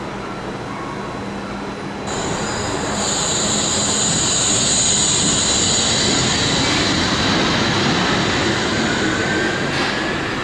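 Wuppertal Schwebebahn suspended monorail car pulling out of a station: rumble of its steel wheels on the overhead rail, with a high whine that comes in about three seconds in and fades as the car moves away.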